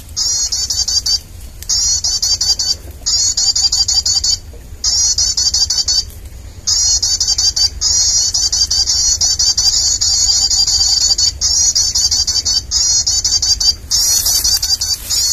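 A shrill, rapid bird-lure call played back for bird trapping, sounding in loud bursts of one to two seconds with short breaks.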